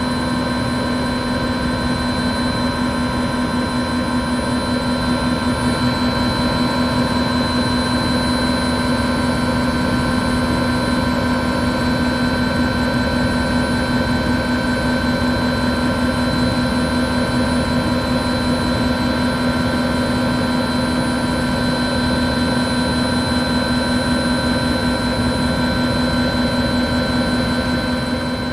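Helicopter engine and rotor heard from inside the cabin: a steady whine made of several constant pitches over an even rush.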